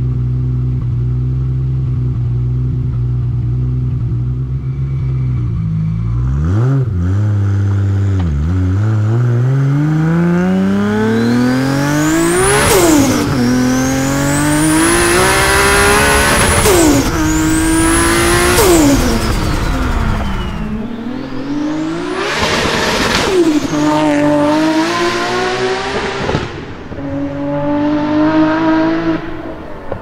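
Big-turbo 2JZ straight-six of an MK4 Toyota Supra, running steadily at first with two quick throttle blips, then pulling hard twice, its pitch climbing through several gears with a sudden drop at each upshift. A high turbo whistle rises and holds over the first pull.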